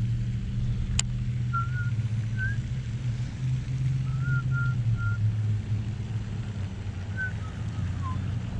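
Steady low motor hum, with a few short high chirps over it and a single sharp click about a second in.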